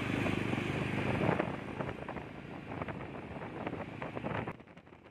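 Jawa 42 motorcycle on the move, with engine and road noise and wind buffeting the microphone; the sound drops away sharply near the end.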